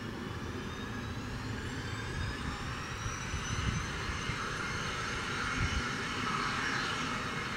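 Pilatus PC-24's twin Williams FJ44-4A turbofan engines running at taxi power as the jet rolls in. A high whine that slowly rises in pitch and grows louder, over a low rumble.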